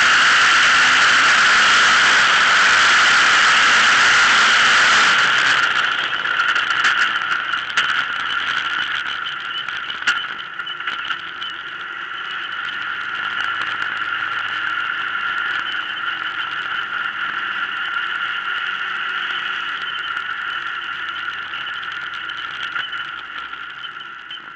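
Autocross buggy's engine running hard, a loud, steady high-pitched whine. It eases a little after about five seconds, then carries many sharp clicks and rattles, and grows quieter near the end.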